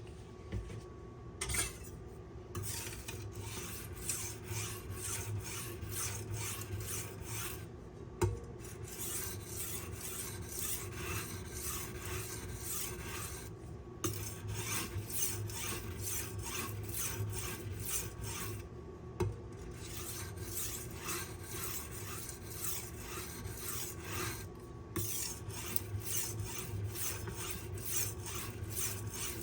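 A steel kitchen-knife blade drawn in rapid strokes across a hard Arkansas sharpening stone, the fine stone of a Smith Tri-Hone, several strokes a second. The strokes pause briefly every five or six seconds, some pauses marked by a light knock. This is the final, fine-grit stage of sharpening.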